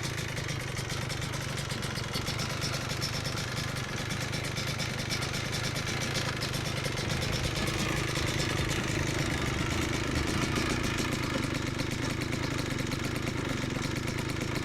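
Big-bore Yamaha Blaster 200's single-cylinder two-stroke engine idling steadily, a little louder around the middle. It is being left to run the carburettor dry of fuel before storage.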